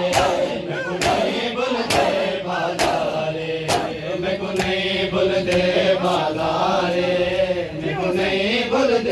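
Group of men chanting a noha together, with sharp rhythmic hand strikes of matam chest-beating just under a second apart. The strikes are strongest in the first few seconds and fainter after.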